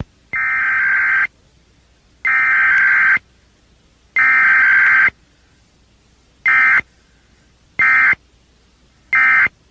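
Emergency Alert System SAME digital data bursts. Three one-second header bursts, about a second apart, are followed by three short end-of-message bursts, with no attention tone between them.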